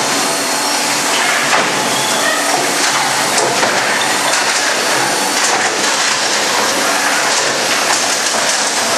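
Double-shaft shredder grinding hard plastic shells: a dense, continuous crunching with many sharp cracks as the plastic breaks.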